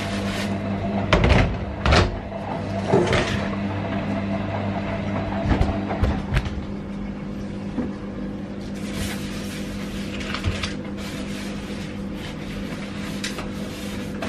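Sink cleaning: knocks and clatter of things handled in a stainless steel kitchen sink, then lighter scrubbing and rubbing, over a steady low mechanical hum. The clatter is densest in the first half.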